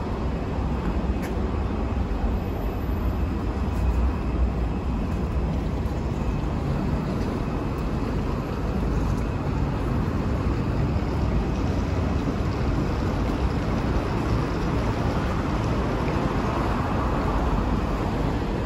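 Steady low background rumble of an open urban space, with no distinct events.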